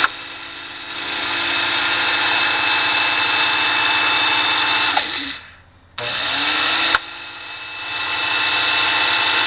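DeWalt DW718 12-inch compound miter saw motor switched on and running up to speed with a steady whine, shut off about five seconds in and winding down, then started again about a second later. It makes a knocking noise that the owner can't explain and thinks may be a loose drive belt.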